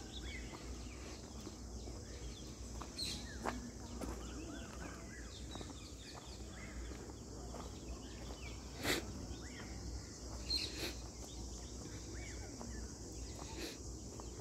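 Birds chirping in scattered short calls over a steady high hiss, with a few sharp clicks now and then, the loudest about nine seconds in.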